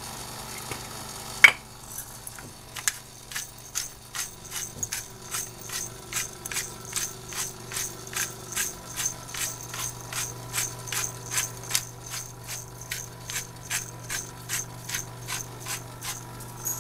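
Hand-twisted pepper grinder being worked, a steady run of ratcheting clicks about three a second, after a single sharp click about a second and a half in.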